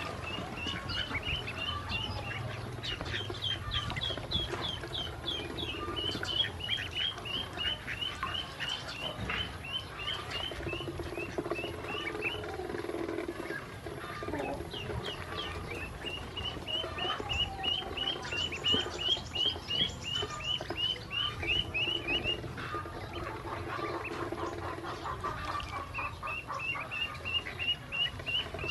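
Ducklings peeping in quick runs of short, high chirps, several a second, pausing briefly now and then. Short clicks are mixed in as their bills peck at the feed in the steel bowl.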